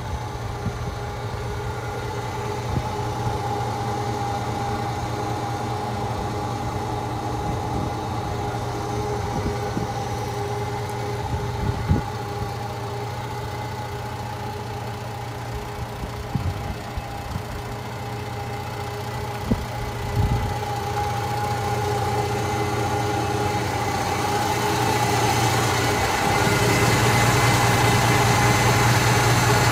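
1994 Mitsubishi Fuso Fighter's 6D17 inline-six diesel engine idling steadily: a low hum with a steady higher whine above it, getting louder over the last few seconds. A few sharp clicks are heard along the way.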